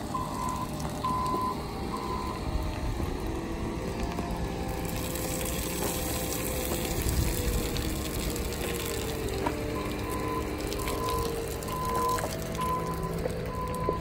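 A vehicle's reversing alarm beeping at a steady pace over the rumble of its running engine. The beeps drop out for several seconds in the middle and return near the end, while the engine's pitch rises and falls slowly.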